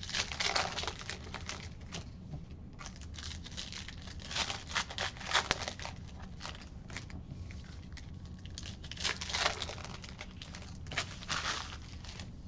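Baseball card pack wrapper being torn open and crinkled, with the cards handled and flipped through; irregular rustling and crackling comes in several short spells.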